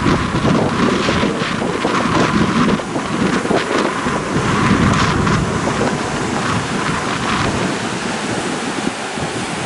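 Rushing water pouring out through a breached sand bar into breaking surf, a loud, steady rush full of sharp splashes, with wind buffeting the microphone.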